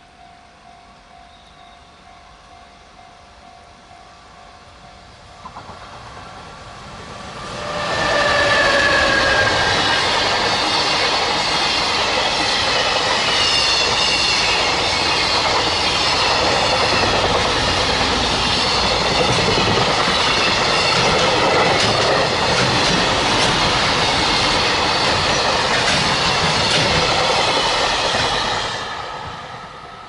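A JR Freight container train hauled by an EF210 electric locomotive passing. It grows louder from about five seconds in and arrives loud about eight seconds in, with a brief falling tone as the locomotive goes by. Then comes a long run of wheels clacking over the rail joints as the container wagons pass, fading out near the end. Before the train arrives, a level-crossing bell rings faintly.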